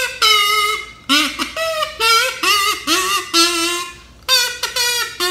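Kazoo played as a simple tune: a run of short buzzing notes sliding up and down in pitch, with a brief pause about four seconds in before the notes carry on.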